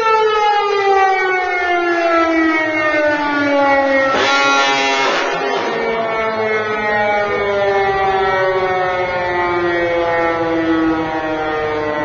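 Firehouse siren winding down, its pitch falling slowly. About four seconds in, a diaphone horn sounds one blast lasting about a second.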